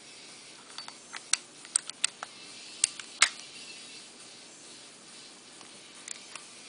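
Slide of an Armorer Works Hi-Capa airsoft pistol being fitted back onto the frame by hand: a string of sharp clicks and clacks over the first few seconds, the loudest two about three seconds in, then a couple of faint clicks near the end.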